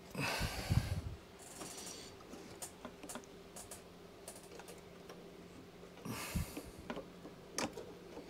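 Small metal clicks and rustling handling noise of needle-nose pliers working a governor spring and rod onto a lawnmower carburettor linkage. There is a burst of rustling at the start and again about six seconds in, scattered light clicks between, and a sharper click at the end.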